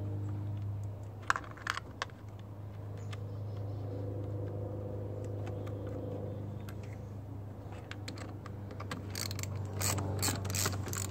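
Socket ratchet clicking as it works a battery terminal nut: a few clicks about a second in, then a quicker run of clicks near the end, over a steady low hum.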